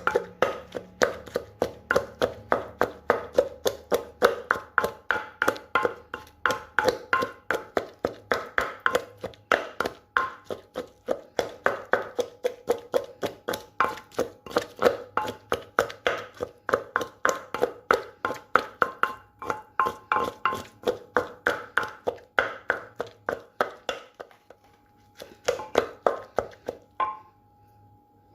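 Pestle pounding in a som tam mortar, a quick, even run of woody knocks at about three to four strokes a second, crushing the chillies for a shrimp salad. The pounding stops near the end, with a short last burst of strokes after a brief pause.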